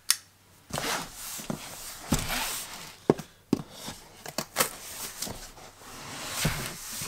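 A small knife slicing through the tape and flaps of a cardboard box, with scraping and rubbing. Several sharp knocks come as the box is tilted and set down on the bench.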